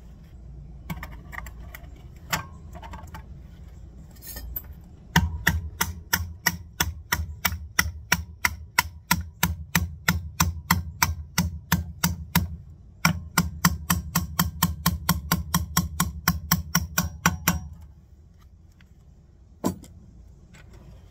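Rapid, even hammer taps, about four to five a second, driving a shim down flush into a motorbike's rear wheel hub, with a short pause in the middle. A few lighter knocks come before the run and one more single knock follows it near the end.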